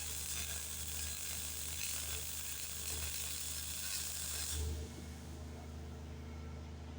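Arc welding a bead into a worn ram housing, building it up to be machined back. It makes a steady hiss that cuts off suddenly about four and a half seconds in, leaving a low hum.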